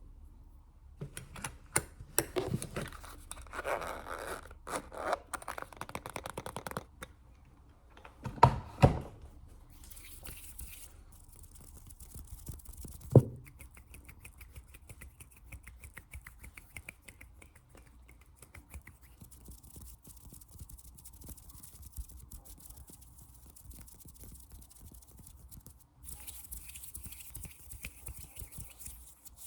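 Close-miked ASMR tapping and hand sounds: a rapid flurry of finger taps and clicks, then two heavier thumps and a single sharp knock, followed by a faint fast ticking and soft rubbing and scratching.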